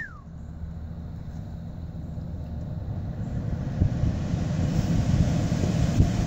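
Low rushing, fluttering air noise inside a pickup truck's cab, growing steadily louder, with a short falling chirp right at the start.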